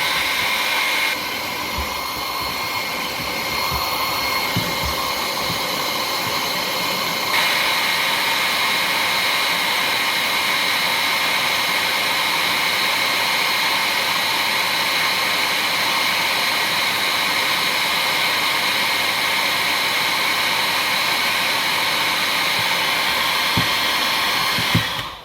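Small hairdryer running steadily, a rushing blow of air with a thin motor whine, used to warm a plastic supply pipe. It steps up a little about seven seconds in and switches off near the end.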